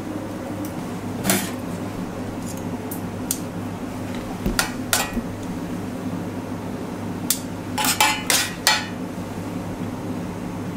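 Metal tongs clinking against stainless steel trays and a plate while vegetables are served out: scattered sharp clinks, with a quick cluster of several about eight seconds in. A steady low hum runs underneath.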